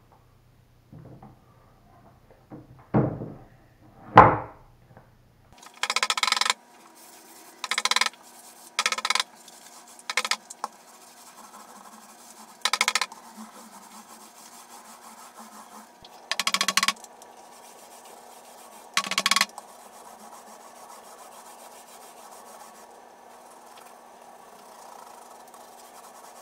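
A couple of knocks from the paint can and plastic roller tray, then short swishing strokes of a paint roller spreading black paint over a plywood desktop, each a brief rub about half a second to a second long, coming at irregular intervals.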